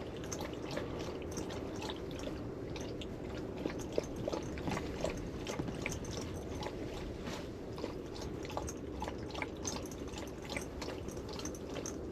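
A dog lapping water from an ice-fishing hole: a run of quick, irregular wet licks and small splashes, over a steady low hum.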